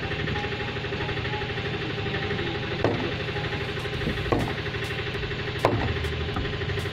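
Three chops of a large knife through fish onto a wooden chopping block, about a second and a half apart. A steady engine hum runs under them throughout.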